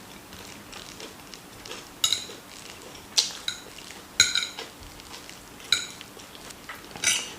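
Cutlery clinking and scraping against a plate during eating, about five sharp ringing clinks roughly a second apart.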